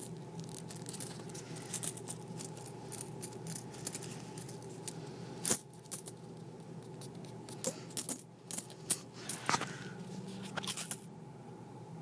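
Wheat pennies clinking against one another as they are shaken out of a paper coin roll and spill into a pile, a run of irregular sharp metallic clicks and jingles with a few louder bursts, the biggest near the end.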